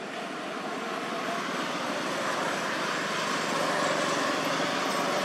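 Steady rushing background noise that slowly grows louder, peaking about four seconds in.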